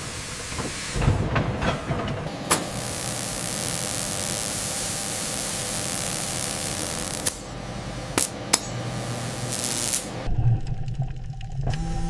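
Steam venting with a loud, steady hiss for several seconds, with sharp metallic knocks before it and a couple more about a second after the hiss cuts off.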